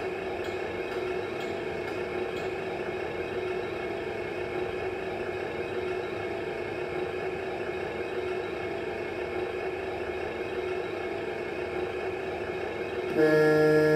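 A GT Power RC sound module plays a simulated truck diesel engine idling through a small speaker, a steady even hum. About 13 seconds in, a much louder simulated air horn comes on and holds.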